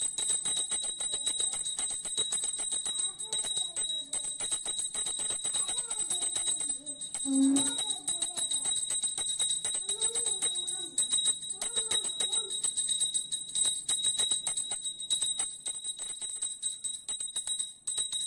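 Brass puja bell rung fast and without pause during an aarti, a continuous bright ringing. A faint melodic voice sings beneath it through the middle.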